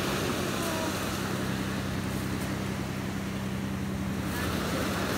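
Surf breaking and washing up over a pebble beach, an even rushing noise, with a steady low hum underneath.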